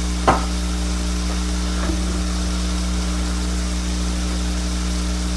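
Venison burger patties frying in a pan, a steady light sizzle under a steady low electrical hum, with a single brief knock about a third of a second in.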